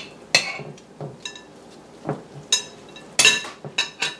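Scattered clinks and taps of a glass mixing bowl and a foil-lined metal baking sheet, about eight in all, as gloved hands scoop a wet cauliflower and corned beef mixture and set it down as patties.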